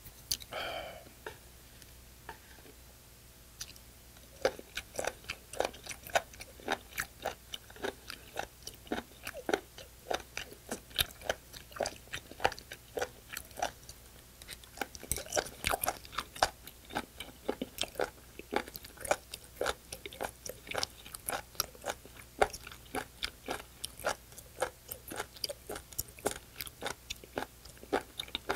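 Close-miked chewing of raw spoon worm: quick wet, crunchy clicks, several a second, starting about four seconds in and running on steadily. Just before that, a brief voiced exhale.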